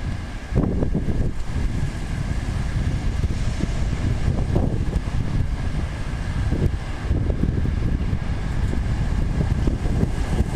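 Strong typhoon wind buffeting the microphone: a loud low rumble that surges in gusts, the first sharp gust about half a second in.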